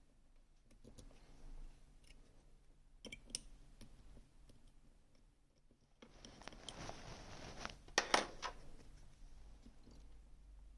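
Small metallic clicks and scraping from picking tools working inside the keyway of a Gerda Exxo sidebar lock. A short run of sharp clicks comes about three seconds in, then a scraping rasp, ending in the loudest clicks about eight seconds in.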